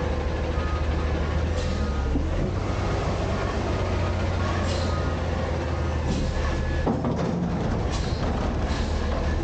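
Autocar/Heil front-loader garbage truck's engine running steadily at low revs as the truck creeps forward, with several short clanks and rattles from the body and lift arms.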